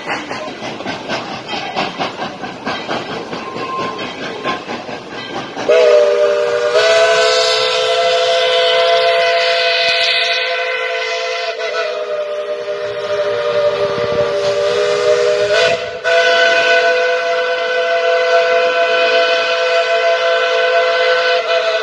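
Steam locomotive's chime whistle blowing a long multi-note chord for about ten seconds, then, after a brief break, a second long blast. Before the whistle, a few seconds of the train's rhythmic running noise.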